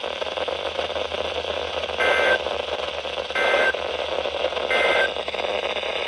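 NOAA weather radio hissing with static, then three short bursts of Emergency Alert System data tones (two-pitch digital squawks) a little over a second apart: the end-of-message code that closes the Required Weekly Test.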